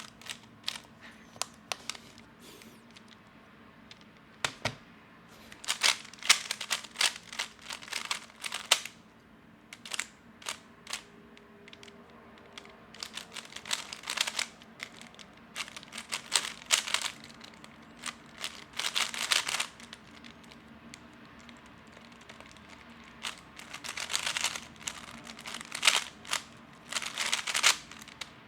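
A magnetic 3x3 speed cube being turned fast during a solve: runs of rapid plastic clicking and clacking from the layer turns, broken by short pauses. There is a long lull about 2 to 5 seconds in and another about 20 to 23 seconds in.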